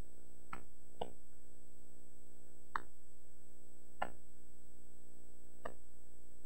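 Steady electrical hum on the church's sound feed, broken by five short clicks at uneven gaps. The pastor's microphone is not coming through.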